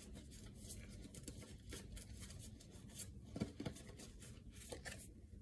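Tarot cards being handled: soft, irregular rustling with light clicks and taps, a few sharper ones about three and a half seconds in.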